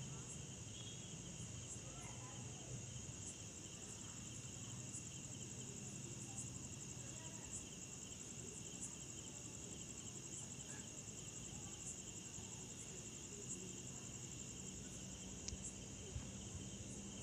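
Faint, steady, high-pitched trilling of crickets, with a few faint ticks scattered through.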